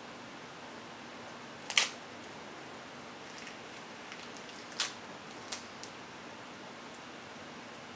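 Dry nori sheets crackling as a toddler bites and tears them: a few short, crisp crackles, the loudest about two seconds in and two more near the middle, over a steady hiss.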